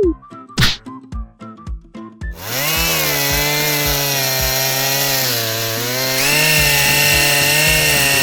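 Cartoon background music with a steady beat and a quick whoosh, then about two seconds in a loud, continuous buzzing motor-like sound effect takes over, wavering up and down in pitch while the beat keeps going underneath.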